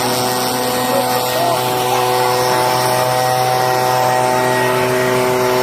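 Chainsaw engine revved up and held at a steady high speed, with no change in pitch, then easing off just at the end.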